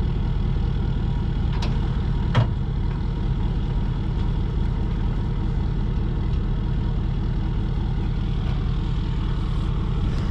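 Truck engine idling steadily, with two sharp knocks about one and a half and two and a half seconds in.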